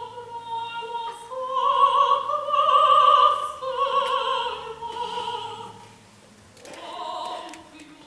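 A woman's operatic voice singing long held notes with a wide vibrato over a soft orchestral accompaniment, loudest in the middle of the phrase and easing off near the end.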